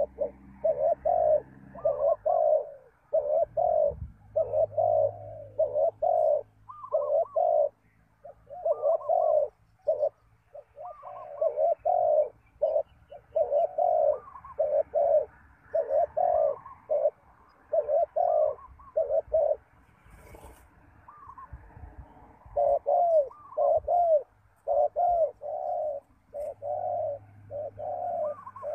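Spotted dove cooing over and over in phrases of several low coos, each phrase opening with a short upward-sliding note, with brief pauses between phrases.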